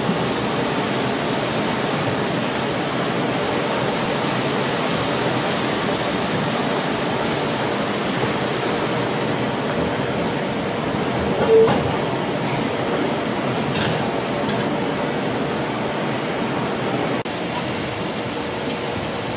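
PWL ProCat rake-type fine screen in operation: wastewater rushing through its 2 mm screen bars while the rake mechanism runs, a loud steady rushing rumble. A brief high tone sounds about halfway through, and the level drops slightly near the end.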